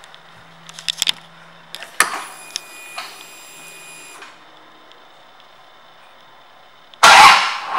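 Clicks of the ignition switch on a 2008 Harley-Davidson Ultra Classic, then a high electric whine for about two seconds as the electrics power up. About seven seconds in, the starter cranks and the Twin Cam 96 V-twin fires up loudly.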